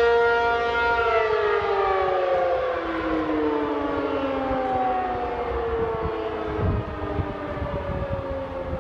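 ACA P-50 outdoor warning siren winding down: its tone holds steady for about a second, then its pitch falls slowly and its loudness eases as the rotor slows.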